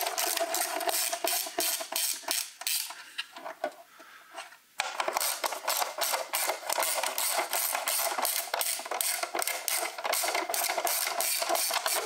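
Socket ratchet clicking rapidly as it spins out the 10 mm bolts on an engine's valve cover. The clicking breaks off for a little over a second about three seconds in, then runs on again.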